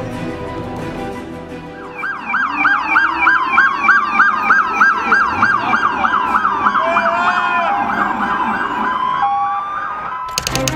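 Police sirens: a fast yelp sweeping up and down about three times a second over a slower rising and falling wail. They come in about two seconds in, after a dark theme-music sting, and stop shortly before a rapid run of typewriter-like clicks at the very end.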